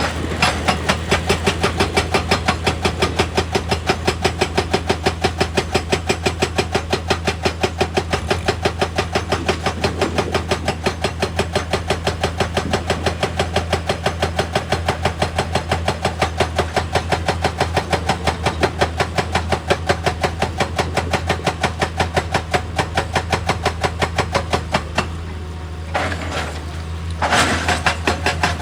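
Excavator running with a steady low engine hum under a regular mechanical hammering, about three to four knocks a second. The hammering stops for about two seconds near the end, then starts again.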